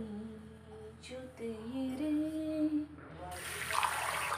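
A woman humming a slow tune in long, gliding notes, with no words. Near the end there is a brief, loud rushing hiss.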